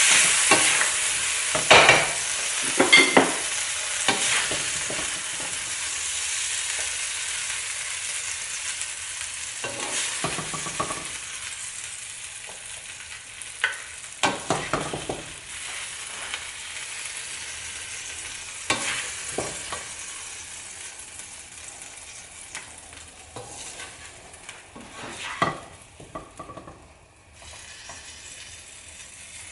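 Stir-fried Chinese broccoli and shrimp sizzling in a hot wok just after the heat is turned off, the sizzle slowly dying down. Now and then a spatula scrapes and knocks against the wok.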